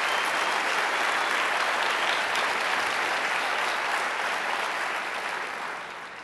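Large audience applauding steadily, the applause dying away over the last second or so.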